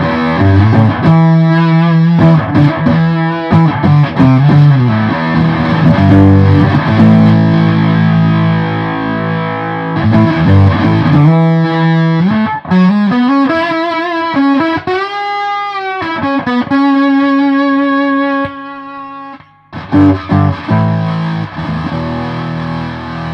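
Electric strings played through a Behringer Bass Brassmaster fuzz pedal, the fuzz mixed with some clean signal, in a run of distorted riffs. About two thirds of the way in, one note is held and bent up and down. Shortly after, the playing stops briefly and then resumes.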